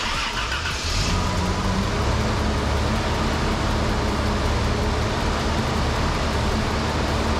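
The Toyota FJ62 Land Cruiser's newly swapped engine, with its exhaust fitted, starts up. It turns over, catches within about a second, and then runs steadily at idle.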